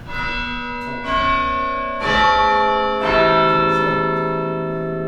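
Church tower bells struck in turn about once a second: four strikes, each at a different pitch, each ringing on and overlapping the next.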